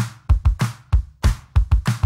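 Music with a drum-machine beat, sharp hits about four times a second.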